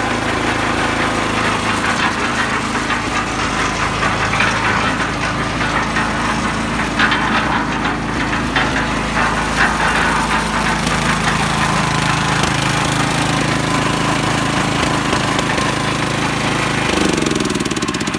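Honda GX270 single-cylinder engine running a portable concrete mixer with its drum turning, with a few sharp clicks in the middle. Near the end the engine speed drops.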